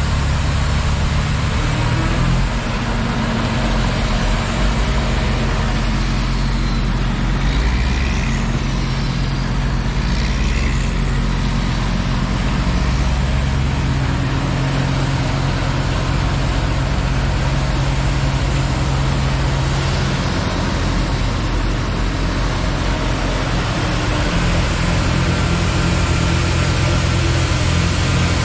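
A John Deere loader running a snow blower attachment, with dump trucks alongside: a loud, steady diesel engine drone with a rushing hiss over it.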